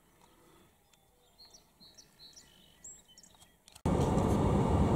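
Faint scattered songbird chirps over quiet field ambience, then, about four seconds in, an abrupt cut to loud, steady vehicle engine and cab noise.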